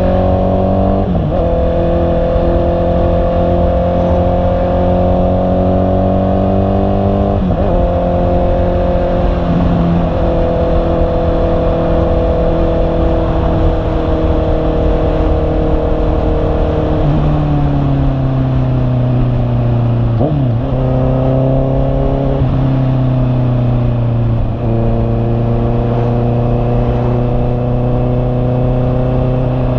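Honda CB650R's inline-four engine running under way, its revs held fairly steady and slowly drifting. The note dips briefly several times at gear changes, over a steady rush of riding noise.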